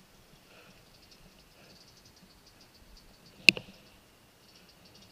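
A dirt bike stalled or stopped: no engine sound, only faint ticking and one sharp knock about three and a half seconds in.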